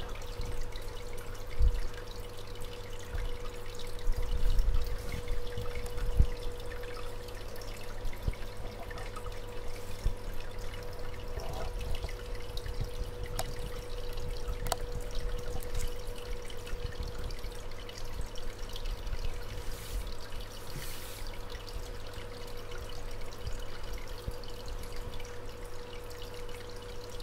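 Aquarium water trickling and splashing, as from a filter outflow, over a steady hum, with a few low thumps in the first several seconds.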